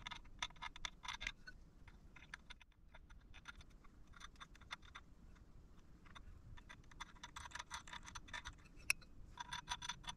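A scribe drawn along a square across a plate to mark where holes will be drilled: faint, rapid, scratchy ticking in several short strokes with pauses between.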